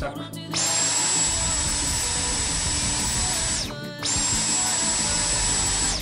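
Dyson V10 cordless stick vacuum running on its low power setting: a steady high motor whine over a rush of airflow. It spins up about half a second in, cuts out briefly a little before the four-second mark, then starts again.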